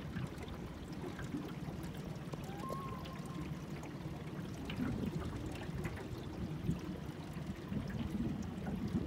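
Water lapping and trickling against the hull of a small boat sitting on a lake, with a steady low rumble of background noise.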